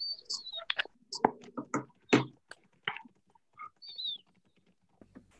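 Scattered clicks and knocks with two short, high, falling chirps, one at the start and one about four seconds in, picked up through participants' open microphones on a video call.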